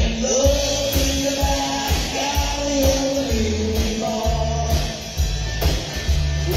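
Live band playing a rock and roll number: upright bass, drum kit and electric guitar, with a held, bending melody line over a steady beat.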